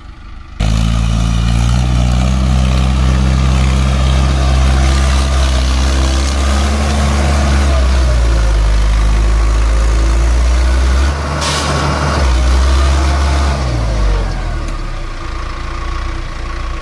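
Mahindra Arjun 555 DI tractor's four-cylinder diesel engine running hard at steady high revs while the tractor is stuck in mud. It dips briefly about 11 seconds in, picks up again, then falls back toward idle about 14 seconds in.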